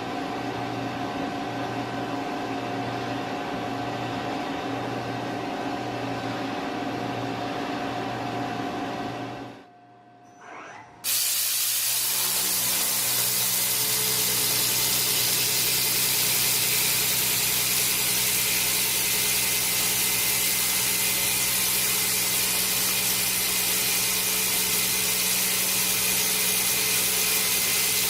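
Industrial machine running with a steady hum and pulsing drone. After a cut about ten seconds in, a loud, steady hiss like a high-pressure spray takes over, with a machine drone beneath it.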